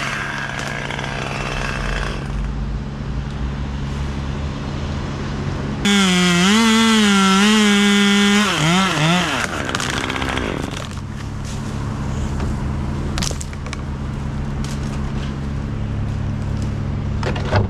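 Chainsaw running, mostly at a low steady drone, then revved to full throttle for about three seconds partway through, its pitch wavering, before dropping back.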